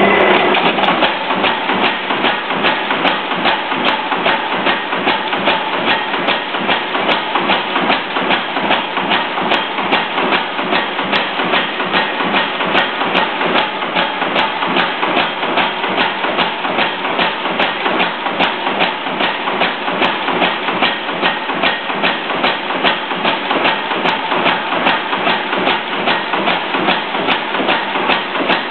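Blacker mechanical power hammer running and striking a red-hot steel bar on its die, a rapid, steady run of even blows over the clank of its linkage.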